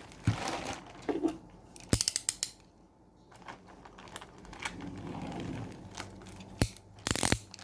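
Handling and working open a cardboard parcel: scattered sharp clicks and rustles, with a quick run of ratchet-like clicks about two seconds in and more clicks near the end.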